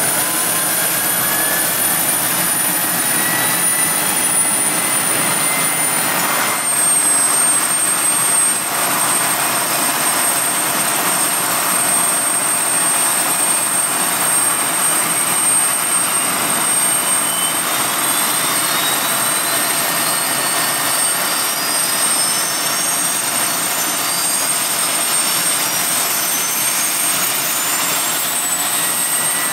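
PZL W-3 Sokol helicopter's turboshaft engines and turning rotors during start-up on the ground: a loud, steady rush with a constant high turbine whine. Over roughly the last dozen seconds another whine climbs steadily in pitch as the turbines speed up.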